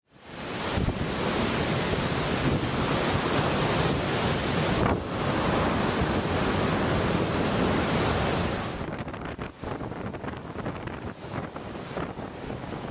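Storm waves breaking against a sea wall, with strong wind buffeting the microphone. About nine seconds in, the sound drops to the quieter, crackling wash of foaming surf rolling in.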